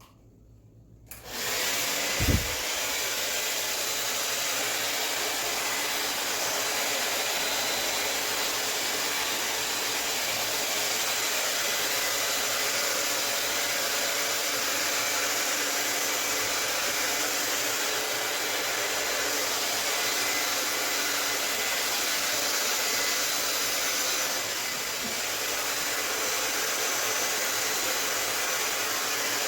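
Handheld hair dryer switched on about a second in and running steadily on its fan, blowing poured acrylic paint across a canvas; a brief low knock about two seconds in.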